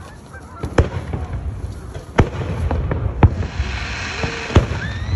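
Aerial fireworks shells bursting: about five sharp booms, a second or so apart, each with a low rumble after it. A hiss builds past the middle.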